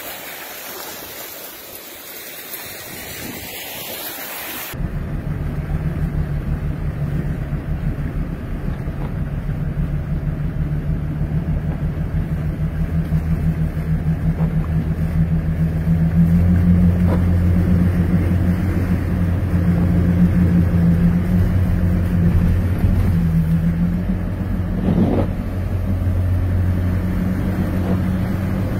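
Steady hiss of wind-driven rain over flooded water. About five seconds in it switches to a vehicle's engine drone heard from inside the cab while driving slowly through deep floodwater, getting louder partway through, with one brief thump near the end.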